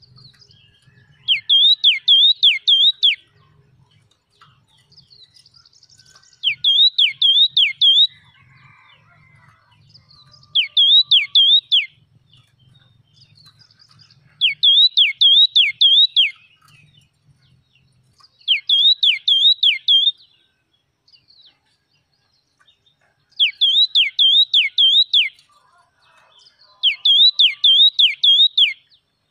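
Yellow-cheeked tit singing loudly: seven phrases, each a quick run of three or four swooping, whistle-like notes, repeated about every four seconds.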